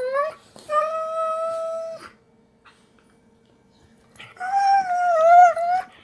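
A pet making long, high whining cries while play-wrestling: three drawn-out calls, the last one wavering in pitch, with a pause of about two seconds before it.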